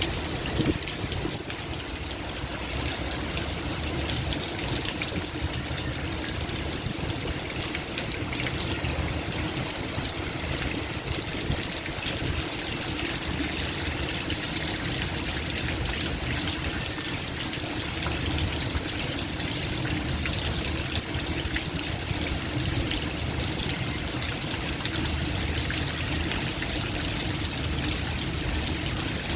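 Heavy downpour: steady, continuous rain noise with water pouring and trickling.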